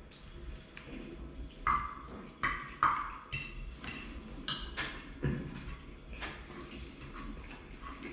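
A metal fork clinking and scraping against a ceramic dinner plate while picking up food, a handful of sharp clinks with a short ring, the loudest a little under two, two and a half and three seconds in.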